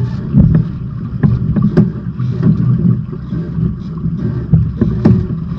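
Wind rumbling on the microphone and water moving along a sailing trimaran's hulls, broken by irregular knocks and slaps.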